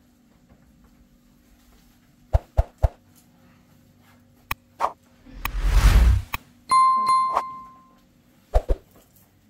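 Three quick knocks, a short loud whoosh, then a single bell-like ding that rings for about a second, with two more knocks near the end.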